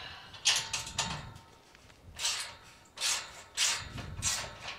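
About six short scraping strokes at a wooden gate post, from hand-tool work on the gate's hinge hardware, the first and loudest about half a second in.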